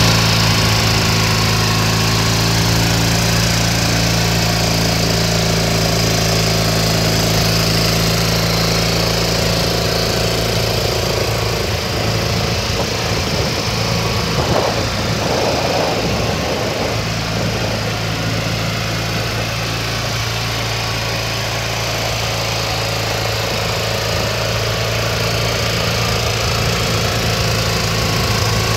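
A 2000 Deines 1800KT zero-turn mower's engine idling steadily, its even note wavering and thinning for a few seconds near the middle.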